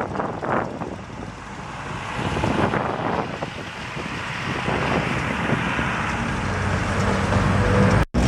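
A tram approaching, its running noise growing steadily louder, with a low motor hum near the end. The sound cuts off abruptly about eight seconds in.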